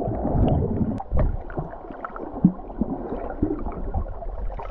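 Seawater gurgling and sloshing, heard muffled from underwater, with a few sharp little knocks and clicks.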